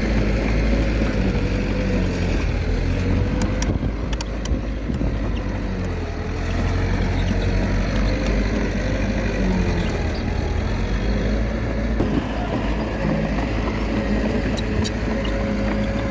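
Komatsu D21A bulldozer's diesel engine running steadily under work, its pitch drifting slightly up and down. There are a few sharp clicks about four seconds in and again near the end.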